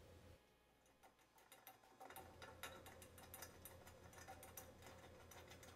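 Faint, rapid small metallic clicks as a screw is turned out of a chrome shower escutcheon plate with a screwdriver, starting about a second in and growing denser.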